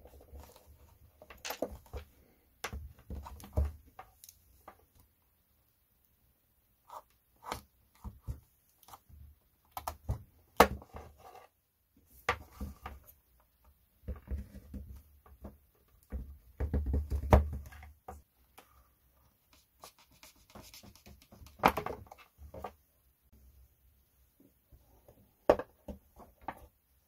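Handling noises from reassembling a chainsaw on a steel workbench: irregular clicks, taps and knocks of metal and plastic parts, with quiet gaps between them.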